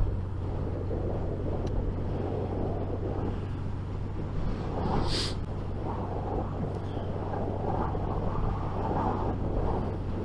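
Wind noise and a Suzuki GSX 750 engine heard from inside a loud motorcycle helmet through a lavalier mic in the helmet while riding: a steady rumble with a low hum, and a brief hiss about five seconds in.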